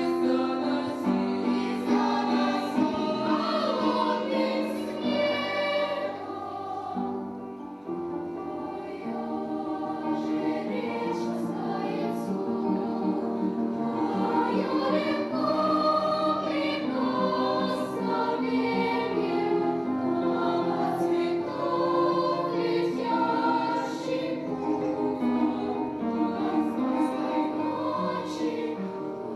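Children's choir singing in several voices, holding and moving through sustained chords, briefly softer about a quarter of the way in.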